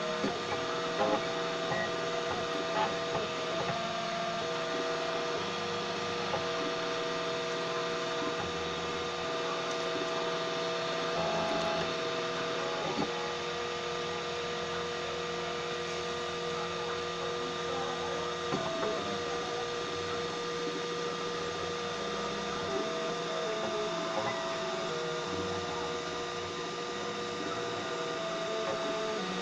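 3D printer running, its stepper motors whining in tones that shift pitch every second or so as the print head moves, over a steady hum.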